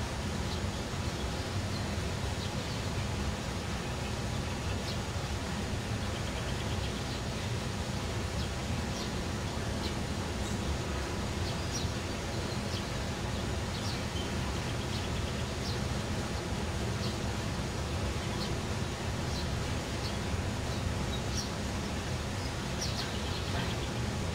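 Steady outdoor background rumble, with short high bird chirps every second or two.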